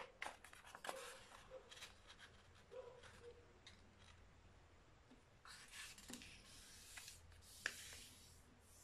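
A sheet of A4 paper being folded in half and creased flat by hand: faint rustling, sliding and scraping strokes, with one sharp tick about three-quarters of the way through.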